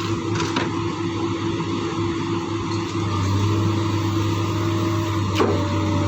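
Excavator's diesel engine running steadily, with a single sharp knock about five seconds in.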